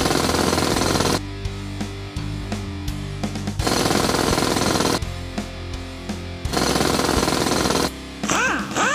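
Background music: loud, dense passages alternating with quieter stretches of held notes every couple of seconds. Near the end, a sliding tone rises and falls.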